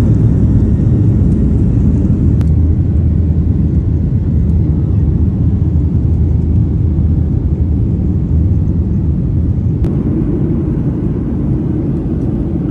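Jet airliner engines and airflow heard from inside the cabin during takeoff and climb: a loud, steady low rumble, with a sharp click about two and a half seconds in and another near ten seconds.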